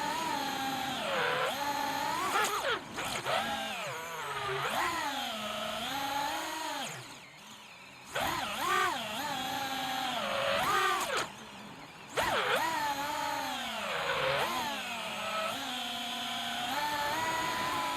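FPV freestyle quadcopter's brushless motors whining, the pitch swooping up and down with the throttle. The sound drops away about seven seconds in and briefly again near twelve seconds, then comes back as the throttle is opened.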